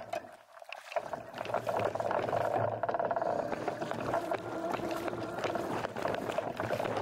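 Water sloshing and splashing around a kayak, with small knocks, starting up about a second in and going on steadily.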